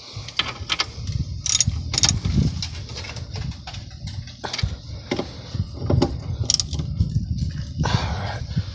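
Handling noise: scattered metallic clicks and knocks at irregular intervals over a low rumble.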